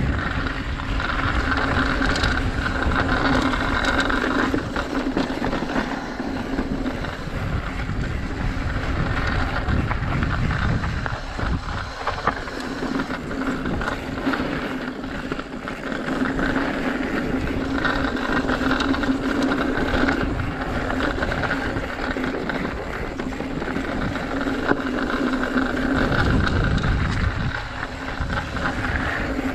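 Mountain bike riding down a dirt trail, heard from a helmet or bike-mounted action camera: wind buffeting the microphone and tyres rumbling and rattling over the ground, with a steady buzz that drops out and returns several times.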